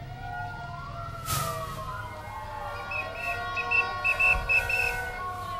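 Sirens wailing, several slow rising and falling pitch glides overlapping. From about halfway, rapid short whistle blasts cut in, the loudest sounds.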